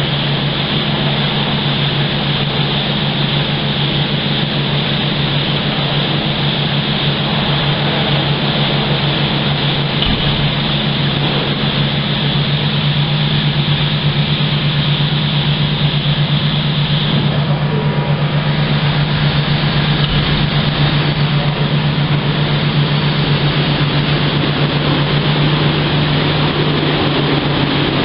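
ISTOBAL truck-wash gantry running: a steady, loud machine hum with water-spray hiss over it. The hiss dies away a little over halfway through, leaving the hum and the noise of the brushes and water.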